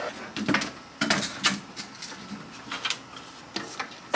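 Scattered, irregular clicks and knocks from a framed solar panel being handled on a ladder and lifted onto a shed roof.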